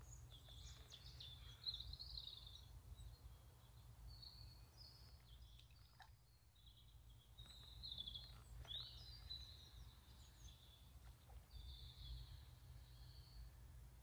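Faint birdsong, a string of short chirping phrases, over a low steady rumble.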